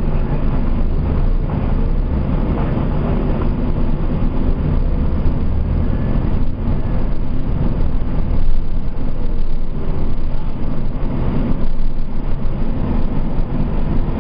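Nova Bus RTS city bus under way, heard from inside the cabin: its diesel engine runs with a steady low drone.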